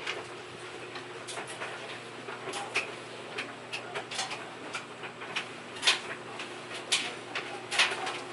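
Irregular clicks and knocks of objects being handled, with a few sharper ones near the end, over a faint steady hum.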